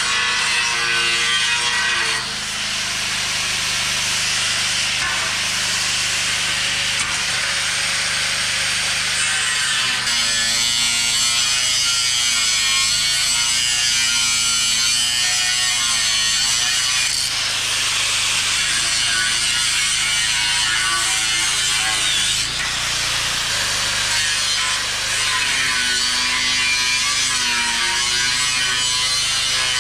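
Angle grinder with a cut-off disc cutting through the steel crossbars of a shipping crate: a continuous harsh grinding, its pitch wavering as the disc works through the metal.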